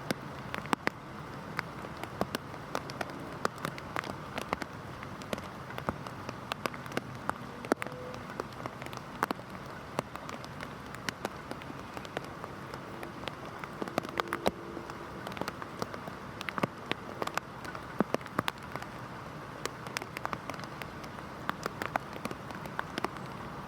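Heavy rain falling in a steady hiss, with frequent sharp, irregular taps from drops striking close by.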